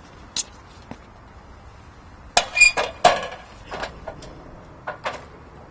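Metal camera-dolly track and dolly clanking as they are handled and set down: a couple of light knocks, then a cluster of loud, ringing metallic clanks about two and a half seconds in, followed by a few smaller knocks.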